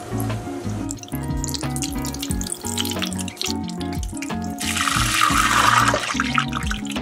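Shrimp toast deep-frying in a saucepan of hot oil: a crackling sizzle over background music. The sizzle swells loudly for a second or so, about five seconds in, as a piece of toast goes into the oil.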